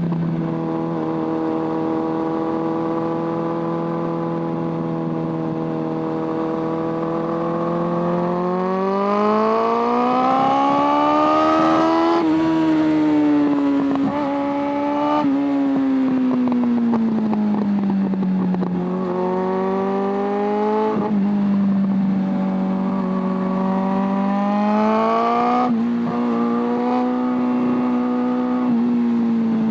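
Suzuki Bandit 600's carburetted inline-four engine under way. It holds steady revs at first, then the pitch climbs with acceleration, with a few quick gear changes. The pitch then falls as it eases off and climbs again toward the end.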